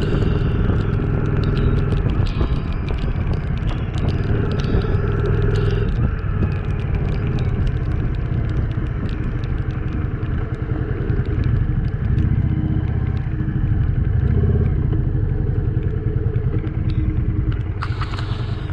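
Yamaha XV400 Virago's air-cooled V-twin engine running steadily while riding on a wet road, with many small sharp ticks from raindrops hitting the camera. A short hiss near the end.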